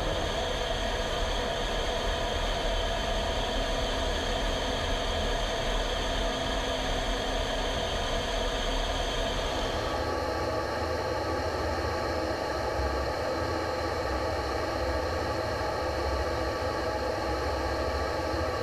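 Jet engine and airflow noise heard inside an F-15E Strike Eagle's cockpit in flight: a steady rushing hiss with several steady tones, and a high whine that stops about ten seconds in.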